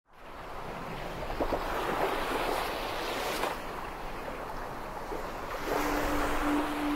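Sea surf washing ashore in slow swells, with wind across it. Near the end a single steady low note comes in as music begins.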